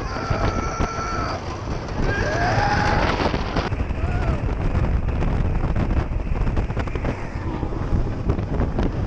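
Wind buffeting the microphone and the rumble of the Millennium Force steel roller coaster running at speed, with riders screaming; one long held scream at the start and rising and falling yells later.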